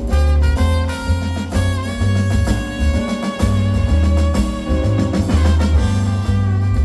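Jazz quintet of trumpet, saxophone, piano, bass and drums playing live: horn lines over strong, moving bass notes, with drum kit and cymbals.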